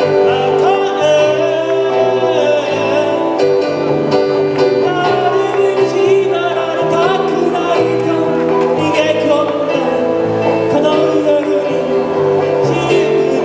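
Live pop song: keyboard and guitar accompaniment with a bass line under a singing voice.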